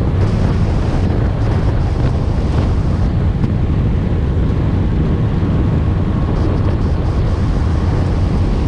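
Heavy wind buffeting the microphone: a loud, steady, low rumble.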